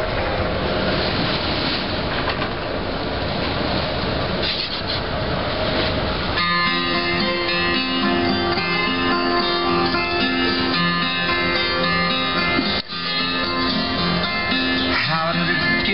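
Rushing wind and water noise as the yacht sails. About six seconds in it switches abruptly to acoustic guitar music alone, with a brief drop-out a few seconds before the end.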